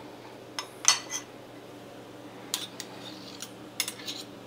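Metal spoon clinking against ceramic dishes while serving out pats of butter: about ten separate sharp clinks in small clusters.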